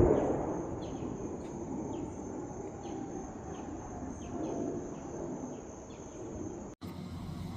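Outdoor ambience: insects keep up a steady high-pitched drone while short chirps repeat about twice a second. A low rush of noise fades away over the first second, and the whole scene cuts off suddenly near the end.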